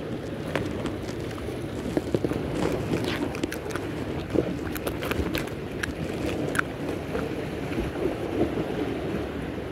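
Steady rush of wind on the microphone with waves, and scattered small clicks and taps from hands handling the fishing line and the catch.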